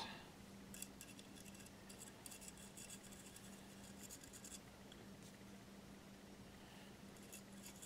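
Near silence: room tone with a faint steady hum and a few faint light ticks and scratches.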